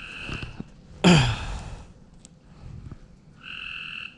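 A frog calling twice with a short, steady buzzy trill, once at the start and again near the end. A louder, brief noise with a falling pitch comes about a second in.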